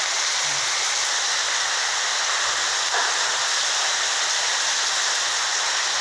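Heavy rain coming down hard, a dense, steady hiss.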